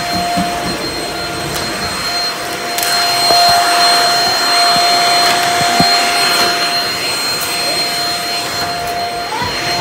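Vacuum cleaner running steadily on a hard floor, a high motor whine over a rushing airflow noise that swells louder about three seconds in, with a few faint clicks.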